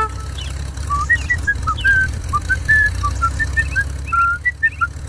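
A steady low rumble, like a small truck's engine running, under a string of short, high whistled notes that jump about in pitch, around three a second.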